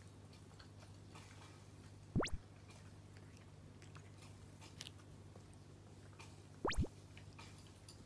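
A cat licking its lips and paw close to the microphone: faint wet licking and smacking, with two much louder sharp mouth sounds, each a quick double, about two seconds in and near seven seconds.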